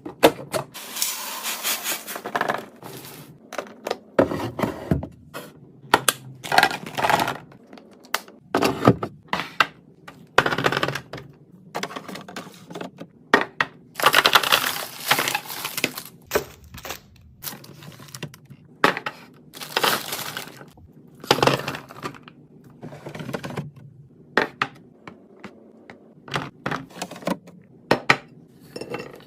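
Containers and food packaging being handled and set down: irregular clicks, knocks and light clinks, mixed with stretches of rustling.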